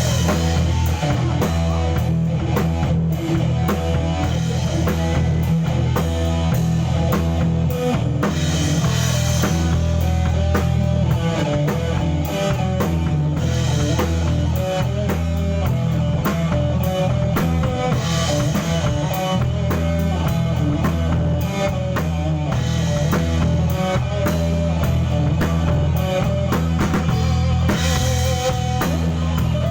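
A live rock band playing: drum kit, bass guitar and electric guitar, with a steady beat and a strong bass line.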